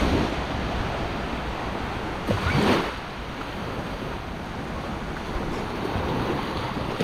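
Sea surf washing onto the beach in a steady rush, with wind buffeting the microphone; briefly louder about two and a half seconds in.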